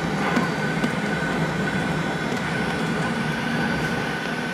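Cabin noise of a Fokker 70 taxiing: a steady whine from its rear-mounted Rolls-Royce Tay turbofans at low power over a low hum and rumble.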